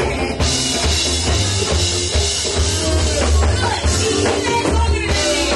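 Live band playing: a drum kit with cymbals, bass and electric guitar, with singers on microphones.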